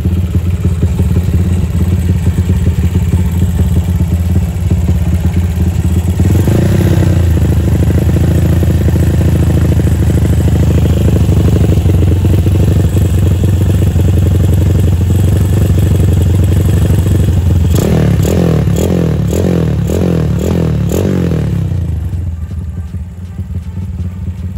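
Honda CB motorcycle's 250 cc single-cylinder engine running through a full-baffle, length-28 DOS slip-on muffler, with a bassy exhaust note. It is revved once about a quarter of the way in, then blipped in a quick run of about seven throttle surges, a little under two a second, before dropping back to idle near the end.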